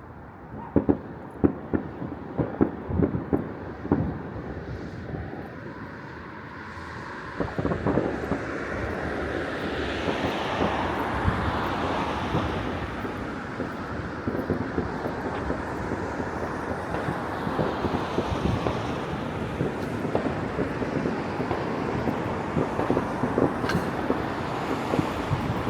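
Fireworks going off across a city. Many separate bangs come in the first several seconds, then a steadier dense rumble with scattered cracks takes over.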